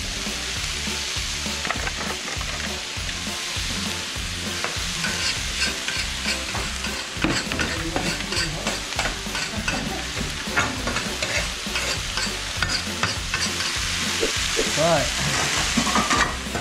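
Crocodile kebabs sizzling on a hot barbecue plate, a steady frying hiss with many short clicks and scrapes through it.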